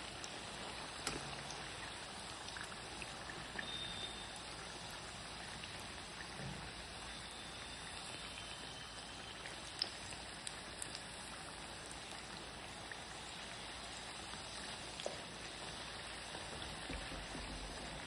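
Papdi discs deep-frying in hot oil in a steel kadhai: a steady, quiet sizzle, with a few light clicks of a wire skimmer against the wok.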